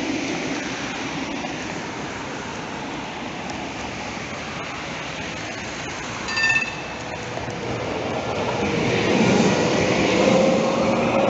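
Trams running on street track: a steady rumble of wheels on rail that swells from about eight seconds as an articulated low-floor tram passes close, with a faint steady motor whine. A short high ding sounds a little past the middle.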